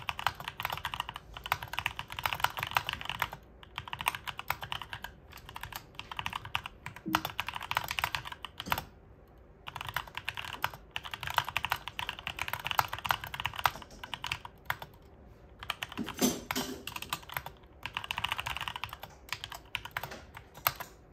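Typing on a Drevo Excalibur 75% aluminium-bodied mechanical keyboard with Cherry MX switches: fast runs of key clacks in stretches of a few seconds, with short pauses between them.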